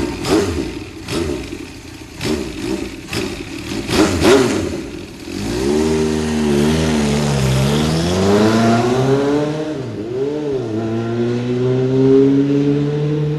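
Engine sound effect from an electronic keyboard: for about five seconds a series of sharp sputtering bangs, like an engine trying to start, then a smooth engine tone that dips and rises as it revs and climbs steadily near the end.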